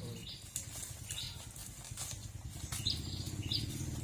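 A small bird chirping, short high notes about every half second. Beneath them run a faint low hum and light scattered clicks.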